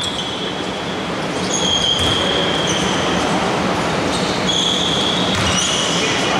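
Indoor basketball hall ambience: a steady noisy din with several high squeals, each lasting about a second.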